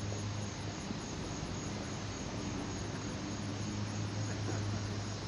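Outdoor ambience: faint, evenly repeating high insect chirping, such as crickets, over a steady hiss and a low hum.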